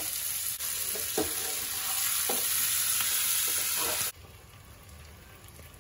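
Capsicum, onion and fried paneer cubes sizzling in oil in a hot frying pan while a steel spatula stirs them, with a few knocks and scrapes of the spatula on the pan. About four seconds in, the sizzle cuts off abruptly to a much fainter hiss.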